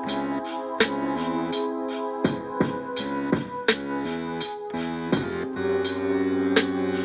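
A beat played from an Akai MPC Live's stock sounds: held keyboard or organ chords that shift every second or so, over regular tambourine-like hits and drum strikes, in a slow, dirge-like groove.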